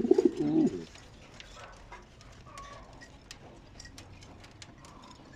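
Domestic pigeon cooing, a low wavering call that stops about a second in, followed by scattered light clicks and a few faint chirps.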